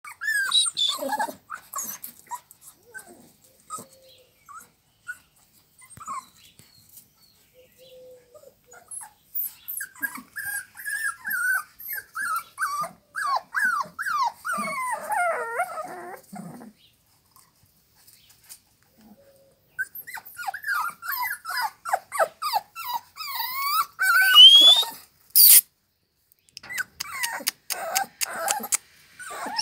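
American Staffordshire Terrier puppies whimpering and yipping in quick runs of short, falling cries, with a lull about two thirds of the way through. A single sharp click near the end.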